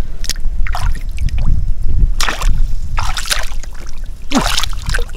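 Water splashing and sloshing in about five separate bursts, over a steady low rumble.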